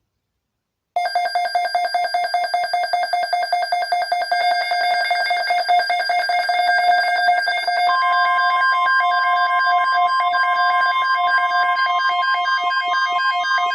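Weather radio alert tones for a National Weather Service severe thunderstorm watch: a rapidly pulsing electronic alert tone with ringing overtones starts about a second in, and about eight seconds in a steady single-pitched weather radio alarm tone joins it.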